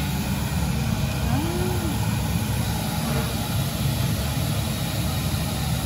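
Gas-fired glassblowing furnaces and glory holes burning with a steady, low roar.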